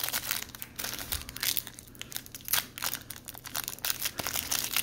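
Foil wrapper of a Pokémon Astral Radiance booster pack crinkling and tearing as it is handled and opened by hand, in a dense run of irregular crackles.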